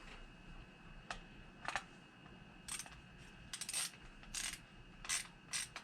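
Light metallic clicks and clinks at irregular spacing, about eight of them, some in quick pairs, from small screws, nuts and hand tools being handled while a speaker is fastened into its mount.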